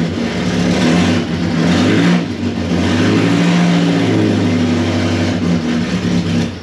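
1932 Austin Seven's 747 cc side-valve four-cylinder engine running just after starting, its revs rising and falling as the throttle is blipped. It stops near the end.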